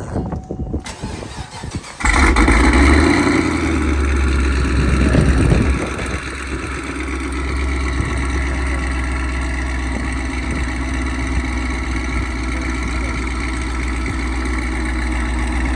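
Car engine cold-starting about two seconds in, first running fast and loud, then settling to a steady, lower idle a few seconds later.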